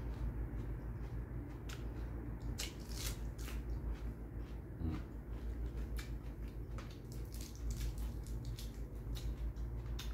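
Raw iceberg lettuce being chewed, crisp crunching crackles coming in clusters, with a leaf torn from the head about midway. A steady low hum sits underneath.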